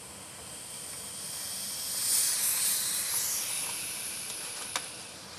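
Air hissing out of a blood pressure cuff, swelling about two seconds in and then fading away.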